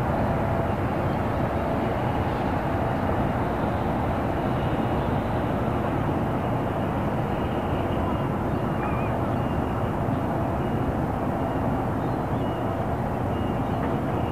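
Calm harbour ambience: a steady low rumble, largely from a nearby main road, with faint short high calls now and then.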